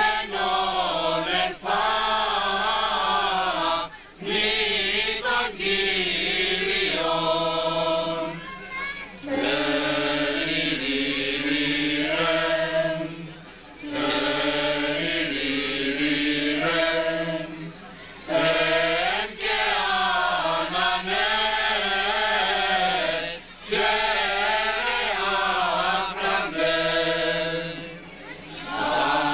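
Men's voices singing a slow chant together, in long held phrases of a few seconds, each broken by a short breath.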